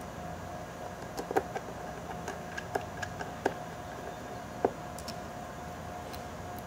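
Small screwdriver and fingers working screws and covers on the plastic underside of a Panasonic Toughbook CF-29 laptop: a scattered run of sharp little clicks and ticks over a faint steady hum.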